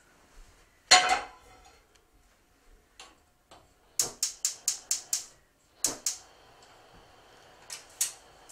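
A metal skillet is set down on a gas stove's grate with a clatter about a second in. About four seconds in, the burner's spark igniter clicks rapidly, about five clicks a second for just over a second, as the burner is lit, with a few more single clicks after.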